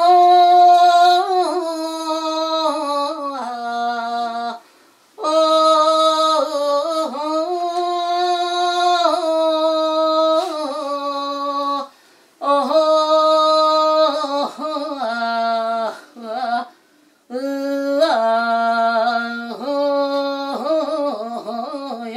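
A woman singing a slow Korean Buddhist song solo and unaccompanied, drawing out long held notes with a slow waver. She sings in four phrases with short breaths between them.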